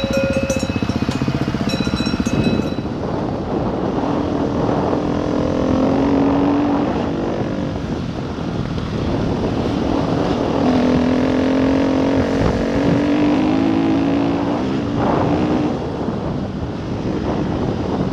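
KTM 350 EXC enduro motorcycle's single-cylinder engine running while riding, its pitch rising and falling repeatedly as the throttle is worked, with wind noise on the helmet-mounted microphone. Steady ringing tones sound over it for the first few seconds and stop abruptly.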